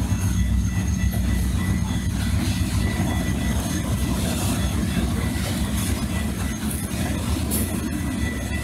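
Wisconsin & Southern freight train's covered hopper cars rolling past: a steady, heavy low rumble of wheels on rail with light clicks and a faint high wheel squeal. The recording is muffled by heavy wind-noise filtering.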